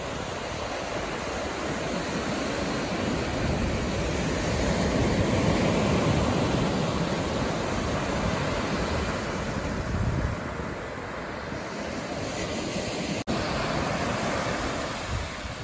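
Pacific surf breaking and washing up a sandy beach: a steady, rushing wash of waves, with the sound cutting out for an instant about two seconds before the end.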